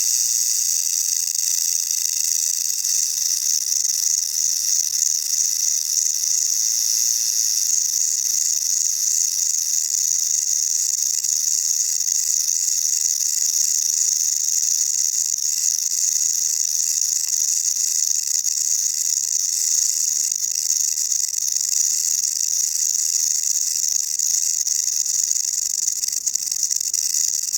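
South American rattlesnake (Crotalus durissus) shaking its tail rattle in a steady, unbroken high buzz.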